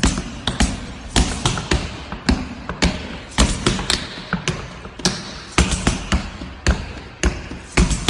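Percussive dance footwork: hard-soled dance shoes striking the floor in quick rhythmic clusters of sharp taps and stamps.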